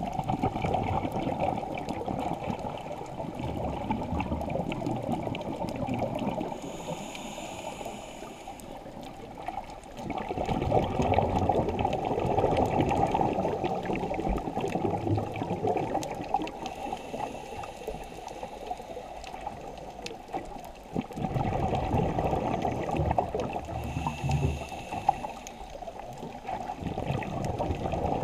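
Scuba diver breathing through a regulator underwater: long bubbling rumbles of exhaled air, with a short hiss of inhaled air between them, about three breaths.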